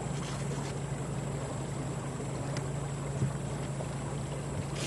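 Outboard motor of a small river boat running steadily with a low hum, heard from aboard, over a wash of water and air noise.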